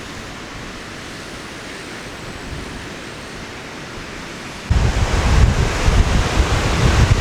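Ocean surf washing in a steady hiss. About two-thirds of the way in, strong sea wind suddenly starts buffeting the microphone, a loud, gusty low rumble over the surf.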